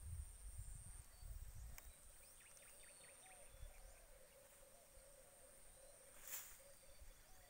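Near silence: faint rural ambience, with a steady high insect buzz that stops about halfway through and a faint chirping call repeated over and over. Low rumbles in the first two seconds and a single soft click near the end.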